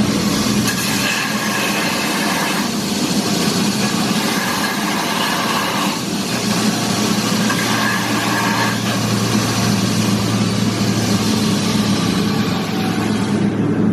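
Belt grinder grinding a freshly forged steel cone drift to shape. It makes a harsh hiss that starts suddenly and changes tone every few seconds with each pass, then stops shortly before the end. A steady motor hum runs underneath.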